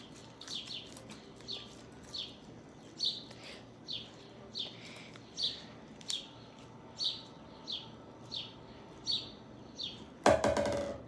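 A bird chirps over and over, a short falling chirp about three times every two seconds. Near the end there is one loud, brief burst of noise.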